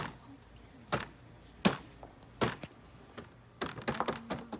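Scattered sharp taps and clicks of tableware and food being handled on a table, about one a second, then several in quick succession near the end.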